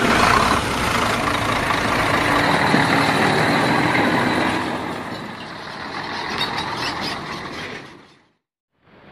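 Scania truck's diesel engine running as the truck drives by, with tyre and road noise; the sound fades out about eight seconds in.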